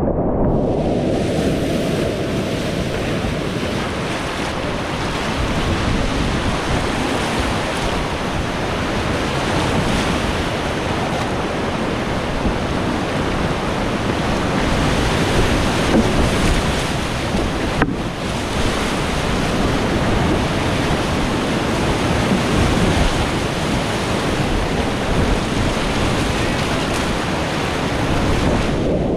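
Whitewater rapids rushing and splashing around a kayak, heard close up from the boat as it runs the rapid: a loud, steady roar of churning water.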